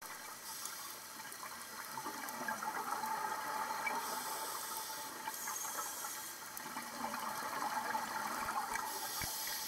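Underwater scuba ambience: a scuba regulator's exhaled bubbles rushing in several bursts of about a second each, over a steady hiss and a faint steady tone.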